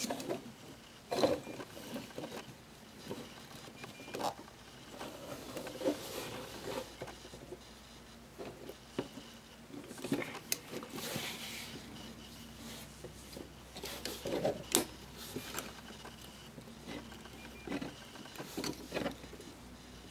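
Hard plastic parts of a Transformers Studio Series Leader Class Jetfire action figure clicking, knocking and rattling at irregular moments as it is handled and its joints are adjusted to make it stand.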